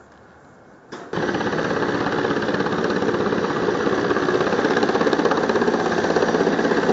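Mil Mi-8-family military transport helicopter flying low past, with a loud, rapidly pulsing rotor chop over turbine noise. It comes in abruptly about a second in, after a quiet first second.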